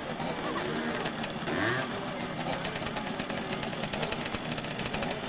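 Small two-stroke engine of a Mecatecno Alevin children's trial motorcycle running steadily, with faint voices behind it.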